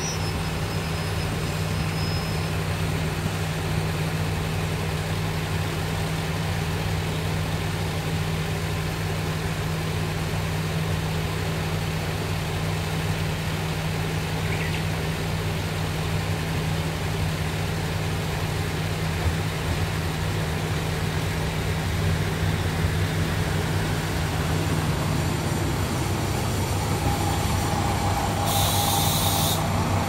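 KiHa 185 series diesel limited-express railcar idling at a station stop, a steady low engine hum. In the last few seconds an oncoming train draws in, with a short hiss of air near the end.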